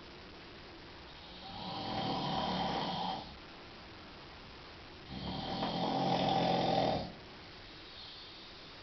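A man snoring loudly in his sleep: two long snores of about two seconds each, the first starting about a second and a half in and the second about five seconds in, with quiet gaps between breaths.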